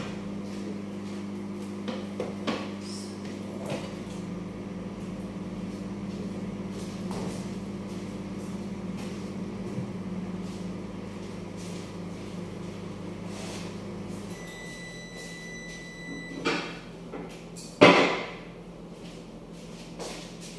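Microwave oven running with a steady hum that stops about two-thirds of the way through, followed by a long end-of-timer beep of about two seconds. Then a knock and a louder clunk, the loudest sound, near the end.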